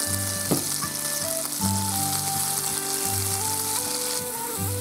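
Melted butter sizzling in a frying pan as breadcrumbs toast in it, a steady hiss, with soft background music of sustained notes underneath.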